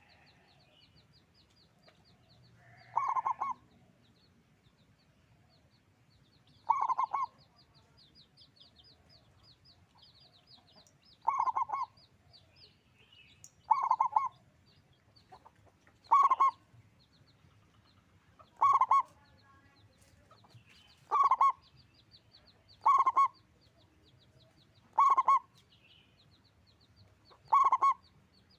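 Zebra dove (perkutut) cooing: short rolling coo phrases about ten times, one every two to four seconds, with a faint high ticking chirr going on steadily underneath.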